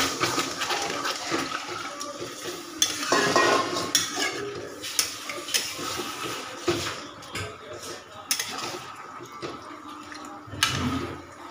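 Long metal spatula scraping and knocking against a metal kadai as thick moong dal with fish heads is stirred, with irregular scrapes and clinks.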